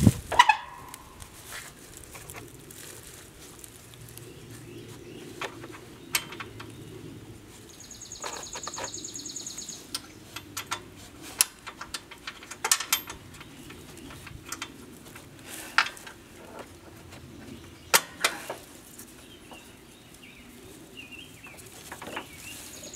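Scattered light metal clicks and knocks as washers, clevis pins and hairpin clips are fitted to a riding mower deck's hanger linkage by hand. A brief high buzzing trill comes in about eight seconds in.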